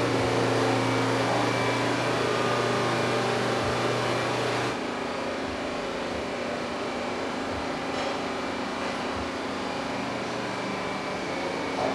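Engine idling with a steady hum. The hum changes abruptly about five seconds in.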